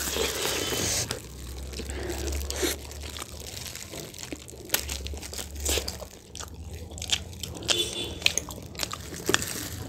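Close-miked eating sounds: biting into and chewing sauced fried hot wings and steamed momos, with scattered crunches and wet mouth clicks.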